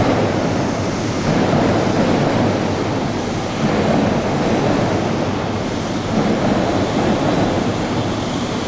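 HST (InterCity 125) train at a platform, its diesel power cars and running gear giving a loud, steady rumble.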